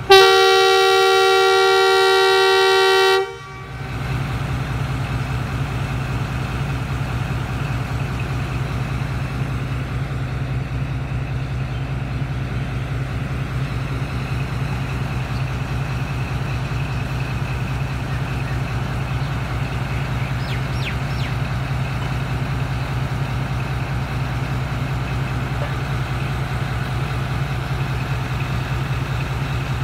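Pakistan Railways ZCU-20 (GE U20C) diesel locomotive sounding its two-tone air horn in one long blast of about three seconds as the Jaffar Express departs. Its diesel engine then runs steadily with a low hum.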